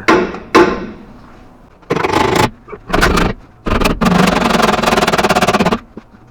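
Impact wrench hammering on bolts in short bursts, then a longer run of about two seconds with a rapid, even rattle, used to remove suspension bolts.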